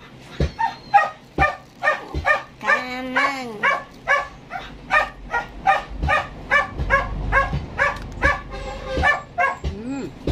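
A dog barking over and over in short yapping barks, about two to three a second, with one drawn-out whining call about three seconds in.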